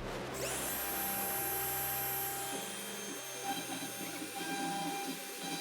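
Shark SD100 CNC router starting up: the spindle spins up to a steady high whine about half a second in. From about two and a half seconds in, the stepper-driven axes add an uneven whirring as the machine starts moving for its test cut.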